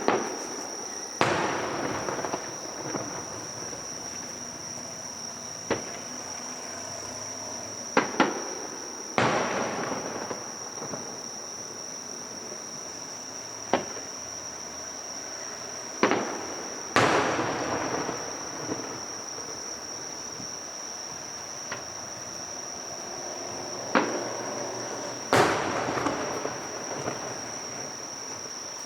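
Aerial fireworks shells bursting: about a dozen sharp bangs at irregular intervals, several trailing off over a second or more. A steady high insect trill runs underneath.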